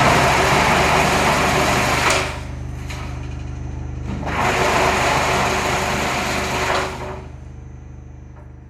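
Laimet HS-21 wood chipper running with a steady drone underneath, and two loud bursts of chipping lasting about two and a half seconds each, the second starting about four seconds in. Near the end the machine runs on without material and the sound fades.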